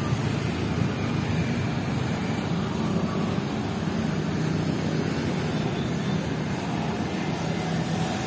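Steady road-traffic noise: a continuous low engine drone from passing vehicles, with no single event standing out.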